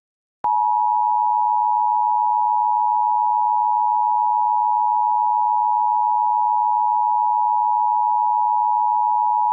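Emergency Alert System attention signal: a loud, steady alarm tone near 1 kHz (the 853 and 960 Hz two-tone pair), starting abruptly about half a second in and holding without change.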